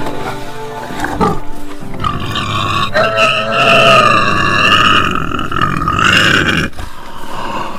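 Wild animal calls over background music, with one long held call starting about three seconds in and breaking off shortly before the end.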